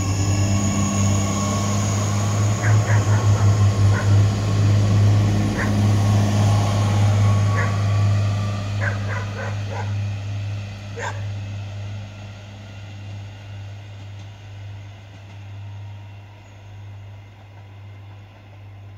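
SNCF AGC X 76500 diesel railcar passing, a low diesel drone that is loudest in the first half and fades steadily as the train moves away. A dog barks several times in the background between about 2 and 11 seconds in.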